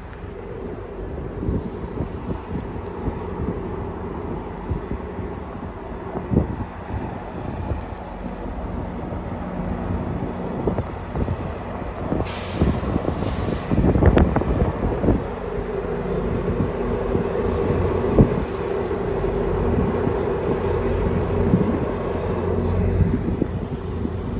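GO Transit diesel-hauled passenger train on the move, its locomotive engine running steadily while the wheels click over rail joints. A short burst of air hiss comes about twelve seconds in, and the train grows gradually louder toward the end.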